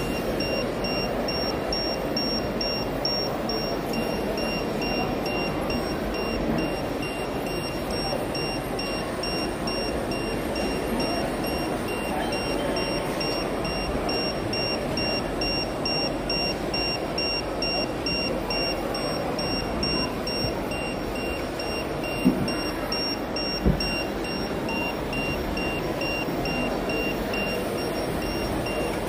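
Music over the steady din of a busy exhibition hall, with a fast, faint high beeping running throughout and two sharp knocks about two-thirds of the way through.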